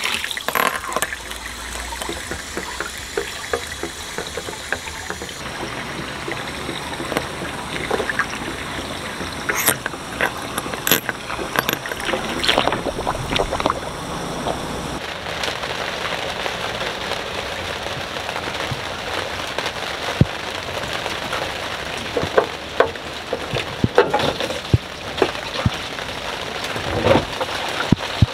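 Water running from a hose into a sailboat's deck fill to refill the water tank, a steady rush with scattered knocks and clunks of handling.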